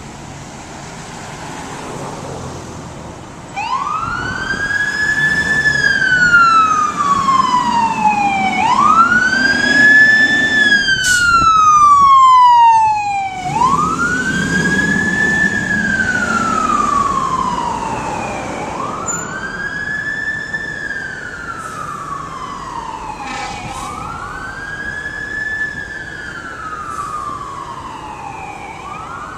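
Fire engine siren wailing, rising and falling in pitch about every five seconds. It starts suddenly a few seconds in, is loudest around the middle, then grows quieter.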